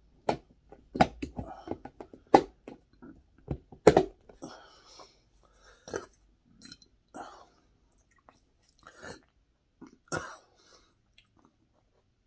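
Chewing and mouth noises close to the microphone, broken by several sharp clicks and knocks in the first four seconds and one more about ten seconds in.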